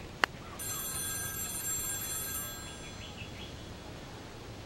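Mobile phone ringing for an incoming call: one bright, bell-like ring that starts just over half a second in and fades away over about three seconds. A sharp click comes just before it.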